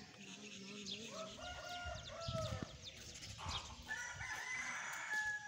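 A rooster crowing in two long calls, the second higher-pitched, about four seconds in.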